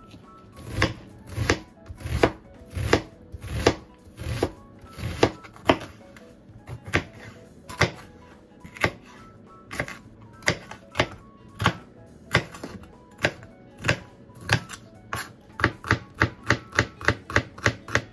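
Kitchen knife chopping vegetables on a plastic cutting board, in sharp single strokes at first about one every three-quarters of a second, quickening to about three a second near the end.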